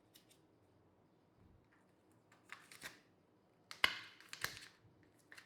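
Segments of a spine-style cable management column being handled and fitted together: a few light clicks and a rustle, then a sharp click about four seconds in followed by a short rattle.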